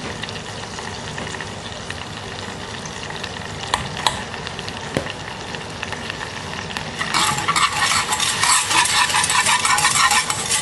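Melted butter sizzling in a saucepan as flour is added, with a few light clicks. About seven seconds in, a whisk starts scraping rapidly around the pan, louder, working the flour into the butter to make a roux.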